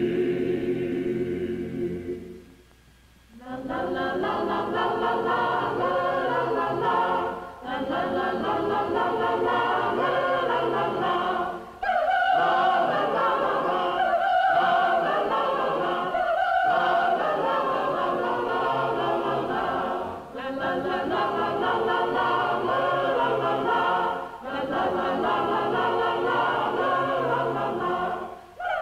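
A choir singing in long, held phrases with short breaks between them.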